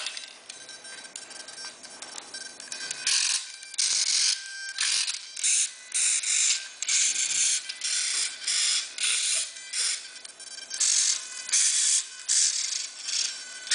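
Parkzone micro receiver servos whirring in short bursts, one after another, as the transmitter sticks move the control surfaces. The bursts begin about three seconds in and come roughly one or two a second.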